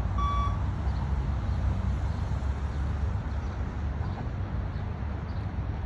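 A single short electronic beep from the beep-test recording, a clear pitched tone lasting under half a second near the start, the timing signal the runner paces to. A steady low rumble runs underneath.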